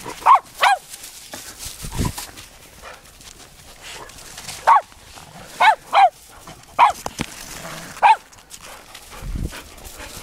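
A dog barking: about seven short, sharp barks in small clusters. Two low thumps sound, one about two seconds in and one near the end.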